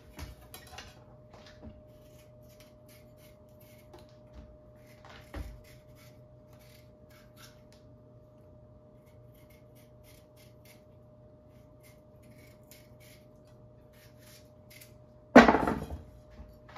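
Short, irregular scraping strokes of a kitchen knife working through vegetables, over a faint steady hum. Near the end comes one loud knock, like something set down hard on the counter.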